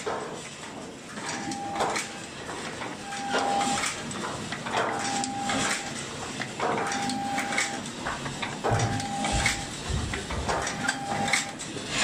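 Automatic thermocouple tip assembling machine cycling: clacks and knocks repeating about every two seconds, each cycle with a short steady tone. A low rumble comes in near the end.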